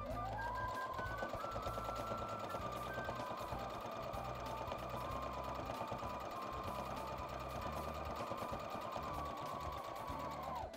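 Electric domestic sewing machine running steadily at speed, stitching a seam through bulky layers of fabric. Its motor speeds up right at the start and it stops abruptly just before the end.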